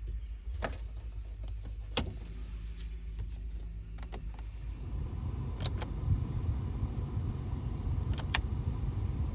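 Low rumble of a car, heard from inside, growing louder about halfway through, with a few sharp clicks scattered across it.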